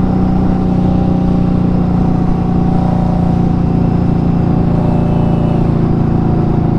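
Indian Scout Bobber's 1133 cc V-twin engine running at a steady, unchanging cruising speed, its throttle held open by a throttle lock with the rider's hands off the bars.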